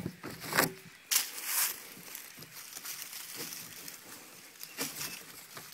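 Nylon webbing straps and a metal cam buckle on a kayak cart being handled: a few sharp scrapes and clicks in the first two seconds, then quieter rustling with a couple more near the end.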